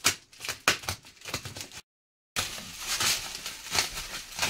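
A parcel being cut and torn open with a knife: irregular crackling, scraping and sharp clicks of packaging. The sound breaks off for half a second about two seconds in, then the crackling resumes more densely.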